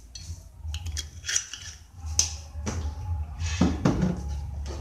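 Kitchen handling noises: a run of sharp clicks, taps and crackly rustles, over a steady low hum.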